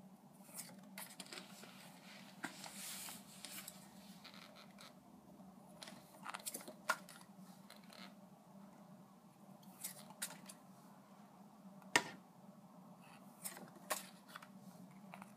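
Stiff Polaroid-style photo cards being handled and shuffled through by hand: soft slides of card against card, with scattered sharp little clicks as the edges tap together. The sharpest click comes about twelve seconds in.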